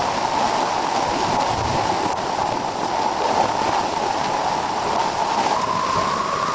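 Steady hiss of torrential rain pouring down. Near the end a sound rises in pitch.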